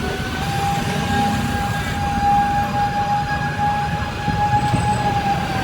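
Street traffic rumble with a steady high whine held for several seconds, its pitch rising slightly as it comes in and sagging as it fades.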